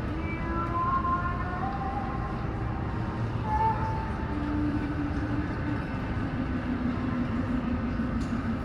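Steady low rumble with faint, drawn-out whining tones that shift a little in pitch, typical of a Boeing 757's Pratt & Whitney PW2000 jet engines idling as the aircraft taxis in to the gate.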